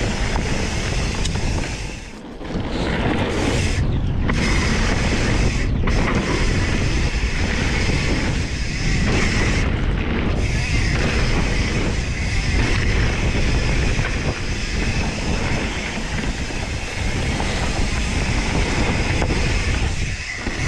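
Wind rushing over the microphone and a mountain bike's tyres rolling fast over a dirt trail, a steady loud rumble that dips briefly about two seconds in.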